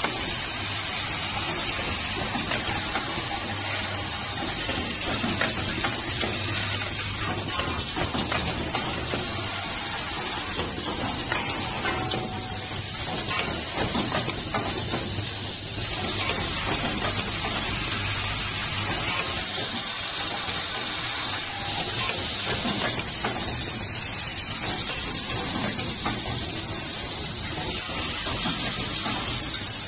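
Automatic wedge anchor bolt, clip, washer and nut assembly machine running: a steady hissing machine noise with many small metallic clicks and rattles of parts, over a low hum.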